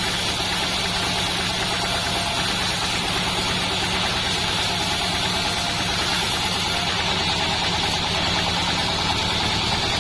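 Band sawmill running steadily, its engine giving an even low hum under a constant high hiss.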